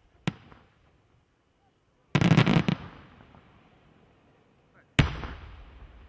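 Aerial firework shells bursting. A sharp bang comes about a third of a second in, a quick run of bangs about two seconds in, and another sharp bang about five seconds in, each trailing off in echo.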